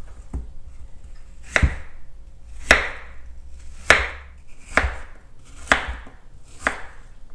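Kitchen knife chopping peeled apples into large dice on a wooden cutting board: about six sharp knocks of the blade on the board, roughly one a second.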